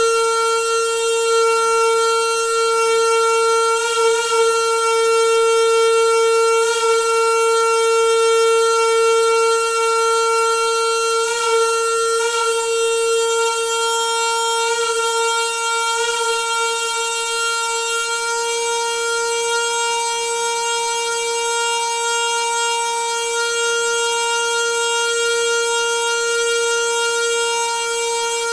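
Noisy water pipe humming with a steady, pitched drone that holds one note throughout, with a few faint ticks in the first half.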